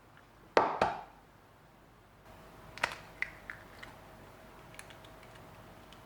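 Two sharp knocks about a quarter second apart, each ringing briefly. Then comes a run of lighter taps and clicks over a faint steady hum that begins about two seconds in.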